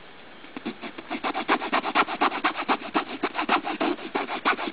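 Fast rhythmic scratching on the nylon fabric of a soft bag, about six strokes a second, starting about half a second in.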